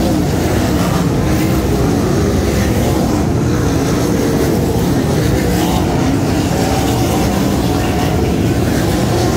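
A field of sprint car V8 engines racing together on a dirt oval: a loud, steady din with several engine notes wavering up and down as the cars lap.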